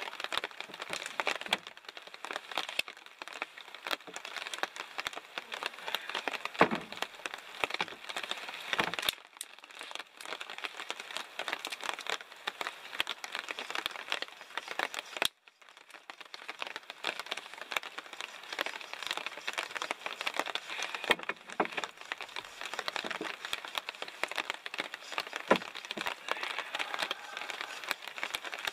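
Thin dry twigs and small branches being snapped and handled by hand, a dense run of irregular cracks and crackling, over a steady patter of rain on the forest floor.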